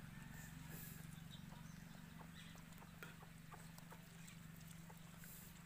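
Puppies eating cooked rice from a steel plate: many faint, irregular clicks of chewing and lapping over a low steady hum.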